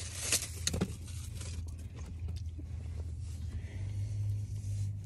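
Mixed peanuts being crunched and chewed, with a few sharp crackles about half a second in, over a steady low hum.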